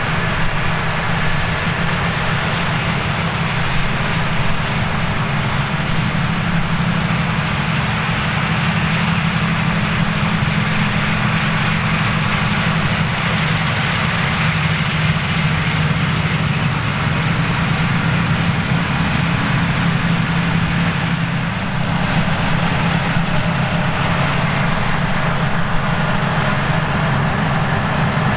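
Large diesel farm machinery running steadily: a constant engine drone with a rushing mechanical noise over it, briefly dipping about three quarters of the way through.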